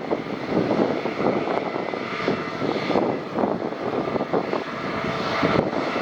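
Jet engines of an Airbus A320neo running: a loud, steady rumble that wavers in level.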